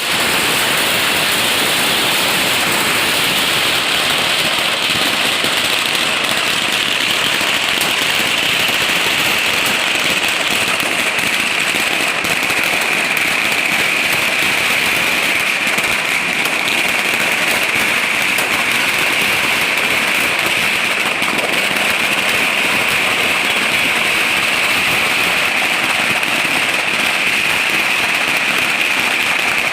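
Firecrackers going off in a continuous, dense run of crackling that holds at a steady loudness.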